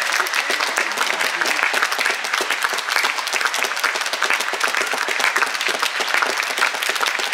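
A theatre audience of about 150 people applauding steadily, a dense patter of many hands clapping.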